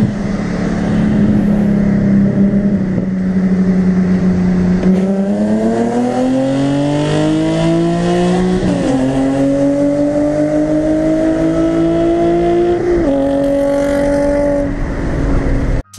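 Infiniti G37's V6 engine and exhaust heard from inside the cabin. It holds steady for a few seconds, then revs up under hard acceleration, and two upshifts bring the pitch down sharply, about 9 and 13 seconds in.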